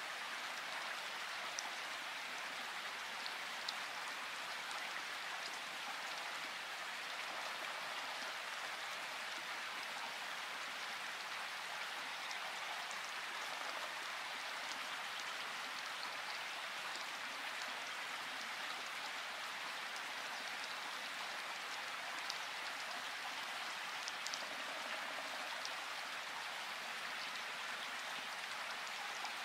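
Light rain falling steadily: an even hiss with scattered small drop ticks.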